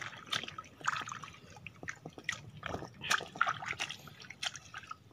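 Bare hands digging in waterlogged mud and shallow water at a mud crab burrow, scooping out mud. The result is irregular wet splashes, drips and squelches.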